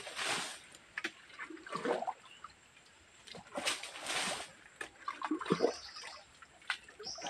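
Muddy water being bailed out of a shallow pool with a small plastic bucket: about four scoop-and-toss splashes a second or two apart, the longest a little past the middle.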